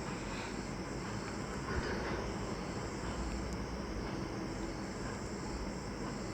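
Steady low background hum and hiss with no distinct events: room tone.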